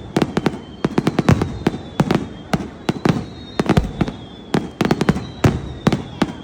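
Fireworks going off in rapid volleys: clusters of many sharp bangs and crackles, with short lulls between the bursts.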